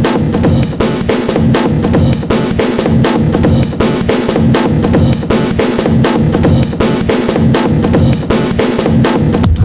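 Background music with a loud, driving drum beat: kick and snare hits at a steady fast pace over sustained bass tones.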